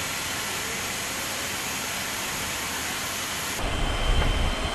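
Jet engine, the SR-71's Pratt & Whitney J58, running with a steady rushing hiss. About three and a half seconds in, it cuts to a deeper, louder rumble.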